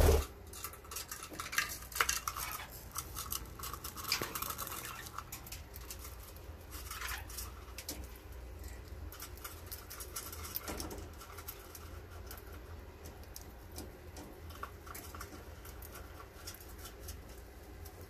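Budgie pecking and cracking seed from an open hand: a quick, uneven run of small clicks, with a few short budgie chirps in the first several seconds. A single thump right at the start.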